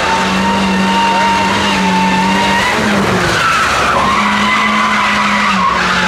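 Toyota HiAce rally van's engine held at high, steady revs as it slides through a tight turn, with tyres squealing. The revs dip briefly about halfway through and again near the end.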